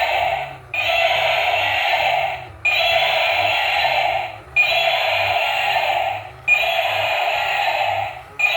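Battery-powered toy vehicle's electronic sound effect from a small speaker, playing in a loop: each burst lasts about a second and a half, starts abruptly and fades out, then repeats about every two seconds.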